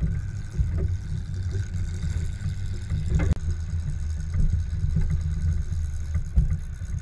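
Engine of a lifted, solid-axle-swapped Chevy S-10 ZR2 pickup running at low speed, heard through its own hood from a camera mounted on it, as a heavy, uneven low rumble. There is a brief break about three seconds in.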